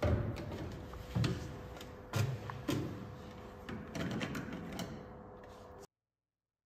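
Plastic water bottle and its screw cap being handled at a stainless-steel water refill machine: a series of separate clicks and knocks, about six over four seconds, as the cap is worked and the bottle is set on the dispenser's tray.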